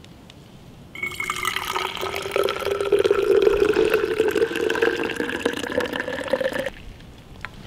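Tea poured from a bail-handled camp pot into a container. It is a steady pour that starts about a second in, with a pitch that rises slowly as the vessel fills, and it stops about a second before the end.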